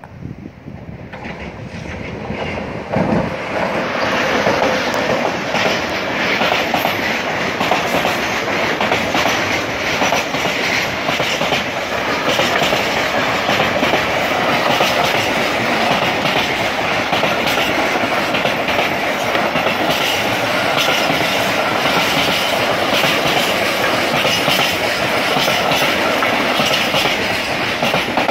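Freight train of container flat wagons passing close by: the noise builds over the first few seconds as it arrives, then holds as a steady loud rumble with rapid knocks of the wheels running over the rails.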